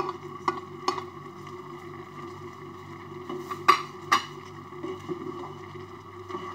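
Spatula knocking against a frying pan while stirring a stir-fry of shrimp, squid and vegetables. There are a few sharp knocks, the loudest a little over halfway through, over a steady hum.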